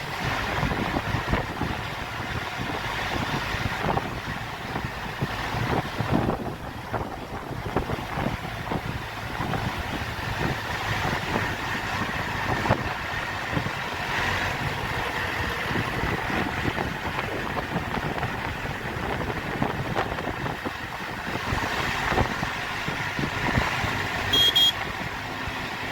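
Moving vehicle: steady road and engine noise with wind buffeting the microphone, and a short high-pitched beep near the end.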